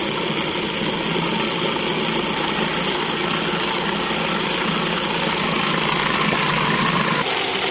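Electric food processor running steadily, its blade grinding walnuts and milk-soaked bread into a thick paste while oil is added through the feed tube.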